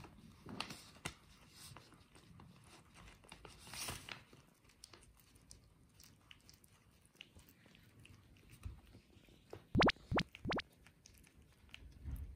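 A Chihuahua biting and chewing at a kraft paper pouch, the paper crinkling and crunching in faint scattered crackles, with three louder crunches close together just under ten seconds in.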